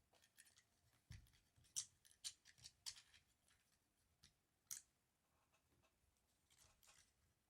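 Small, sharp clicks and light scraping of airsoft 1911 pistol parts being handled and fitted, with about half a dozen distinct clicks and a duller knock just after a second in.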